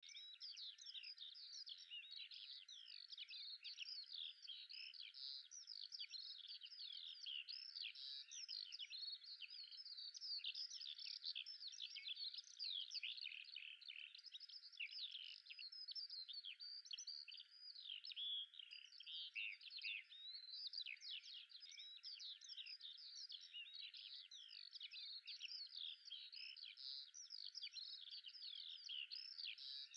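Faint, dense chorus of many small birds chirping and twittering without a break, all high-pitched with no low sound under it.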